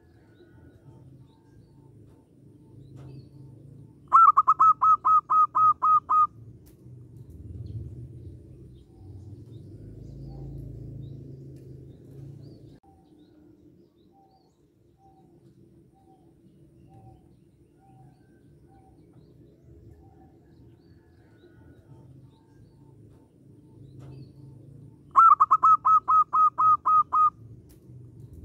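Zebra dove (perkutut) singing twice, each phrase a quick run of about ten ringing cooing notes lasting about two seconds, the phrases about twenty seconds apart. Between them, faint distant bird notes over a low background rumble.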